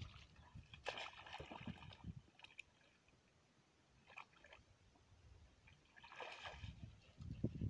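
A dog leaping into a lake from the bank, with a splash about a second in and then short bouts of splashing as it swims. A low rumble comes in near the end.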